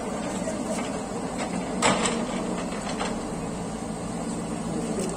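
JCB backhoe loader's diesel engine running steadily, with a sharp knock about two seconds in and a fainter one a second later.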